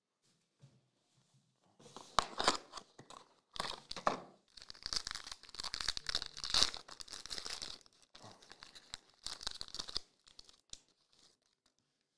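Foil wrapper of a Panini Optic Choice basketball card pack being torn open and crinkled, in irregular bursts that start about two seconds in.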